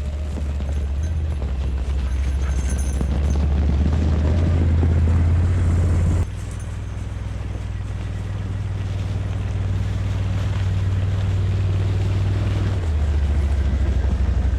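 ATV engine running as the quad is ridden, a steady low drone that drops off about six seconds in and picks up again near the end.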